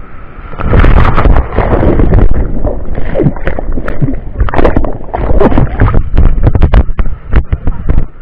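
Whitewater of a breaking wave surging over a camera held at water level: loud churning, splashing rush with water knocking on the microphone, starting about half a second in as the surge hits.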